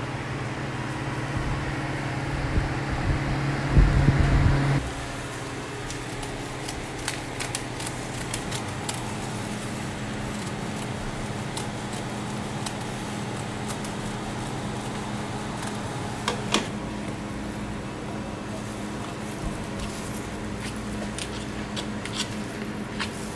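Steady hum of a fan and kitchen machinery; a louder motor runs for the first few seconds and cuts off sharply about five seconds in. Scattered light clicks and taps of scissors and a spatula working on a waffle.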